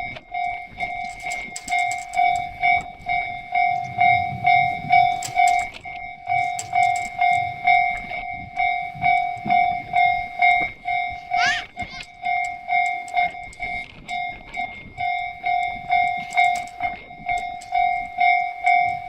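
Japanese railway level-crossing warning bell ringing steadily, about two dings a second. A brief gliding squeal sounds about halfway through.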